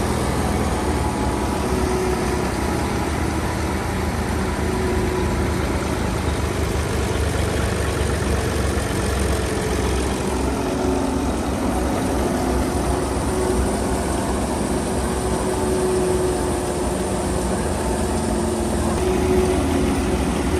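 Alghazi tractor's diesel engine running steadily while driving a wheat threshing machine, a dense, unbroken machine noise.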